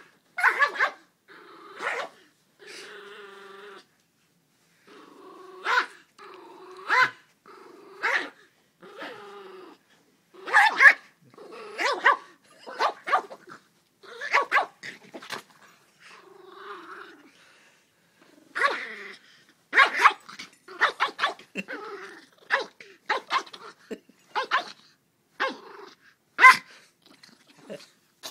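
Yorkshire terrier growling and barking in play: runs of short, sharp barks and yaps broken by stretches of low growling. It is mock aggression, the dog wagging his tail as he plays.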